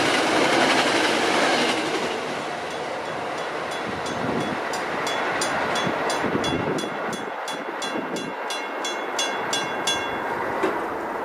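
A commuter train passing over a grade crossing, its rumble easing off after about two seconds. Once the train fades, a crossing bell rings with regular sharp strikes about twice a second, stopping near the end. The bell is a Western Cullen Hayes electronic Mbell.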